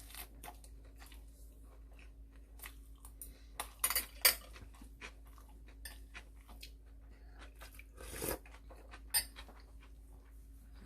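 People eating at a table: chewing, with spoons and chopsticks clicking against bowls and dishes. There is a cluster of louder clinks about four seconds in and more near the end.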